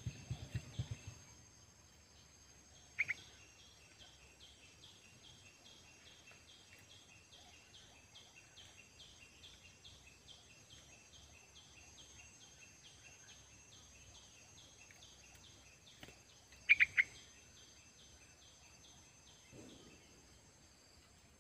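A caged yellow-vented bulbul giving short, sharp chirps: one about three seconds in and a quick run of three near the end. A faint, steady, rhythmic chirping runs under it for much of the time.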